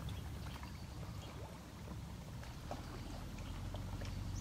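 Water trickling and lightly splashing in a snakehead fish pond as fish stir at the surface, with a few small faint ticks over a low steady hum.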